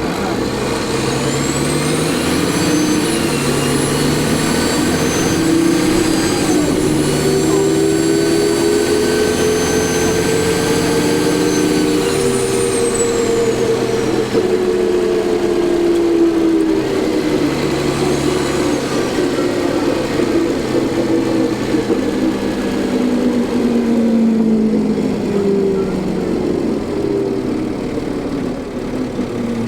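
Cummins ISL diesel engine of a New Flyer D40LF transit bus pulling under load, with a high turbocharger whine that climbs and holds for about ten seconds, then falls away. A second, shorter pull brings the whine back briefly, and the engine note then winds down.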